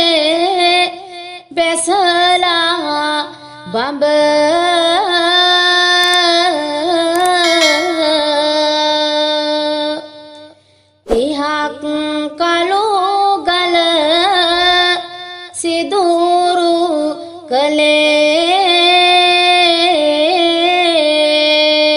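A woman's voice singing a Sinhala folk verse (jana kavi, a gem-miners' pathal kavi) in a slow, drawn-out melody with wavering ornaments on long held notes. It falls in two long phrases with a pause about halfway.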